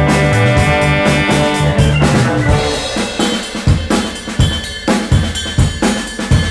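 Recorded soul-funk band music. The full band plays with a bass line and held pitched parts, then about two and a half seconds in it drops to a drum-kit break of kick and snare hits.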